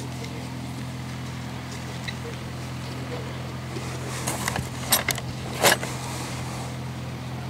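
A steady low hum, with a few sharp clicks or knocks between about four and six seconds in, the last one the loudest.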